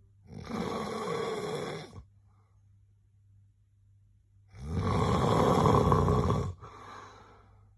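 A man snoring in his sleep: two long snores about four seconds apart, the second louder, followed by a softer breath.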